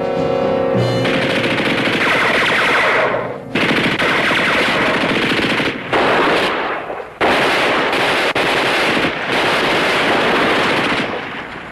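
Sustained machine-gun fire in about five long bursts separated by brief pauses, tailing off near the end. Orchestral brass music ends about a second in as the firing starts.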